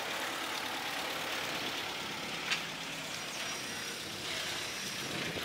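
Steady noise of a car running, with a single click about two and a half seconds in.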